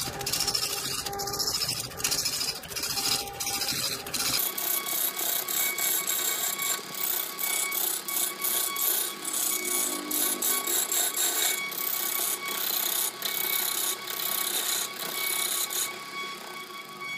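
Wood lathe roughing a large spinning log, the turning tool chattering against the uneven wood. About four seconds in the sound turns thinner and higher, a scraping with a steady ringing tone.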